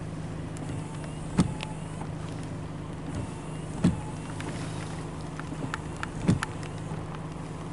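A car idling, heard from inside the cabin as a steady low hum. A short thump comes three times at even intervals of about two and a half seconds, with faint scattered ticks in between.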